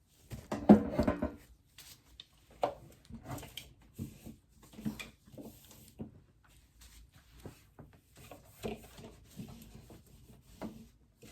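Irregular knocks, taps and clatter of items being handled and set down while a mini fridge is cleaned out, with a louder burst of clatter about a second in.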